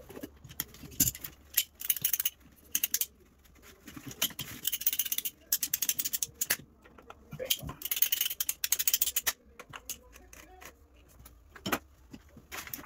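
Bursts of rattling, scraping handling noise from plastic water pipe and fittings being fitted into the wall. There are several short bursts and two longer ones of about a second each.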